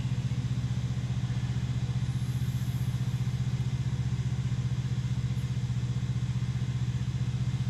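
A vehicle engine idling steadily: a low, even hum with a fast regular pulse.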